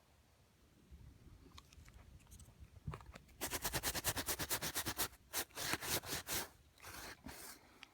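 A brush or tool scrubbing carpet pile, working dye into the fibres of a bleach spot: a quick run of scratchy strokes at about ten a second, then a few slower, longer strokes near the end.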